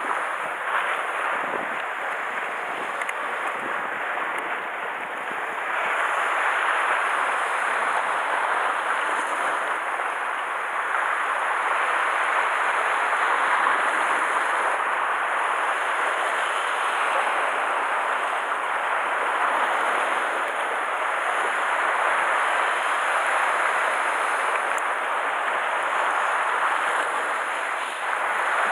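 Sea surf washing and breaking against a rocky shore: a steady rushing that swells and eases slowly, a little louder after about six seconds.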